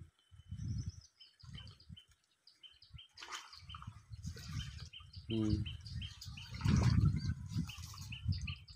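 Water splashing and sloshing as a woven cane fish trap is worked and lifted out of a pond, loudest about two-thirds of the way in. A small bird chirps over it in a quick, even, repeated series.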